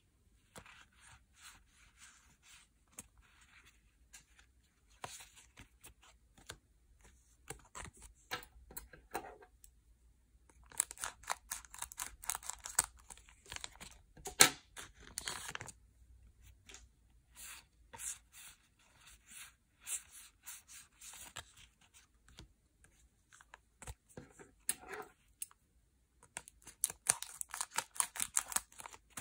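Yu-Gi-Oh! booster-pack foil wrappers being torn open and crinkled, in irregular spells of crackling separated by short pauses.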